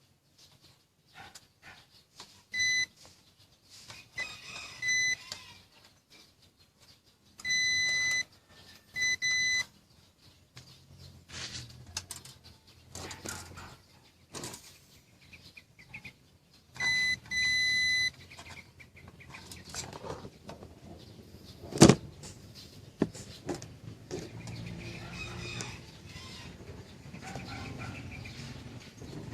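Electronic beeps of a steady high tone: two short ones, then two about a second long, then one more. Light clicks and handling knocks fall between them, with one sharp click about two-thirds of the way through.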